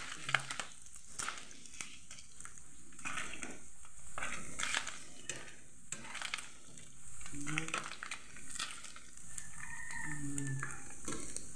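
Spam slices sizzling in hot oil in a nonstick frying pan, a steady hiss, with frequent light clicks and scrapes of tongs turning the slices against the pan.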